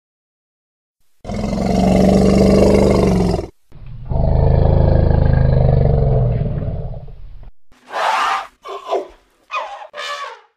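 A large animal roaring: two long roars, then four short calls near the end.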